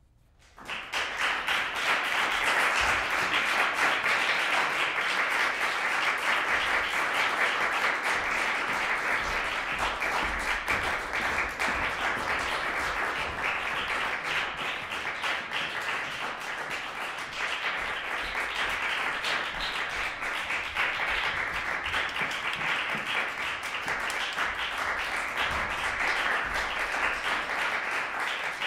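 Audience applauding: many hands clapping, starting suddenly about half a second in and going on steadily, easing slightly later on.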